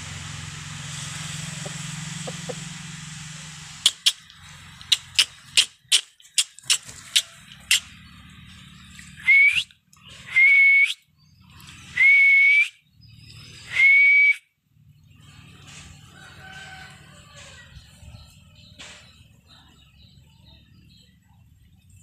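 A run of about ten sharp clicks, then four loud whistles about a second apart, each falling quickly and then holding one steady note.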